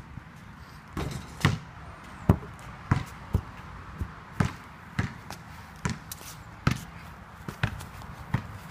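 Basketball bouncing repeatedly, about a dozen thuds, one every half second or so.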